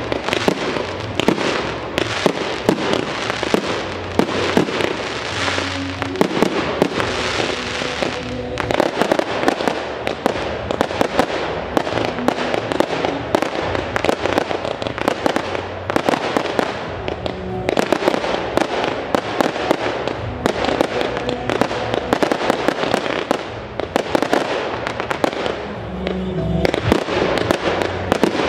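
Aerial fireworks going off nonstop: rapid bangs of shells bursting and the crackle and hiss of comets and stars, with music playing underneath.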